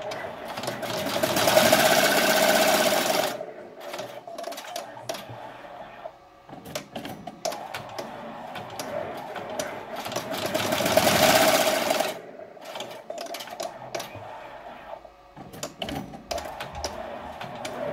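Multi-needle embroidery machine stitching: two longer, louder runs of rapid needle strokes, with quieter stretches of irregular clicking between them.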